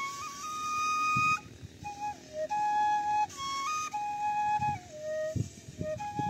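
Hmong side-blown bamboo flute played solo: a slow melody of long held notes that drops to lower notes in the middle and climbs back up.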